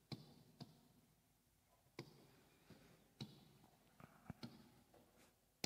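Faint, scattered taps and short strokes of a stylus on an interactive whiteboard's touchscreen as lines are drawn, about seven separate clicks with near silence between.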